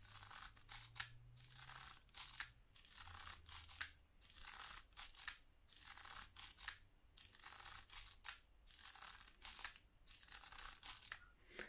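Curta mechanical calculator's crank being turned over and over: each turn a short, faint, clicking whirr from the stepped-drum gearing, repeated more than once a second. These are the repeated subtraction turns of a division.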